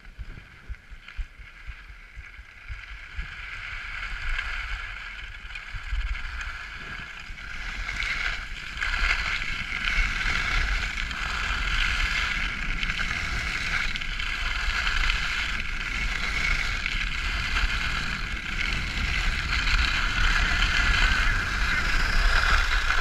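Skis sliding and scraping over groomed snow in a continuous hiss, with wind buffeting the microphone in a low rumble; it grows louder over the first ten seconds as the run picks up speed, then holds steady.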